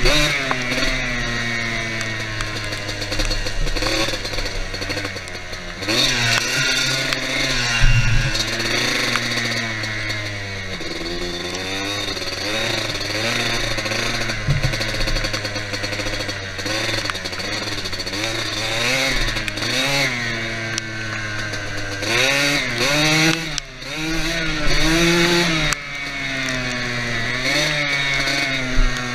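ATV engine running under riding load, its revs rising and falling repeatedly with the throttle.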